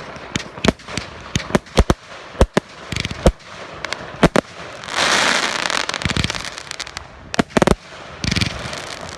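Consumer firework cake firing: a string of sharp, irregular bangs from the launched shots. About five seconds in, a burst of dense crackling lasts about a second, followed by a few more bangs.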